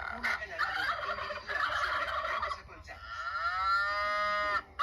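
Turkey gobbling in a rapid, chattering run, followed about three seconds in by one long animal call that rises in pitch and then holds.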